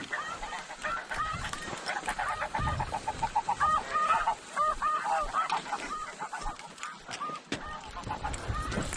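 A flock of snow geese calling, a dense overlapping chorus of short, high honks that never lets up.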